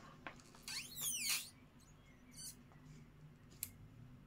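Light clicks and taps of cardboard jigsaw puzzle pieces being handled, over a faint steady low hum. About a second in comes a brief high squeak that falls in pitch.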